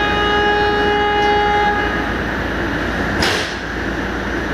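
Train horn sounding one steady note for about two seconds, followed about three seconds in by a short, sharp hiss of air, over a steady rumble.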